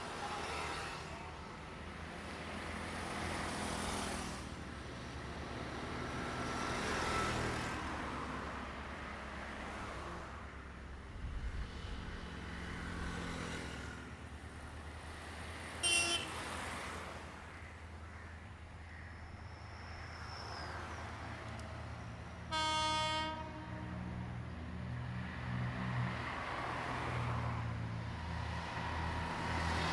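Rumbling passing-vehicle noise that swells and fades several times. A very short sharp toot comes about halfway through, then a single steady horn blast of just under a second, typical of a Sri Lankan train horn.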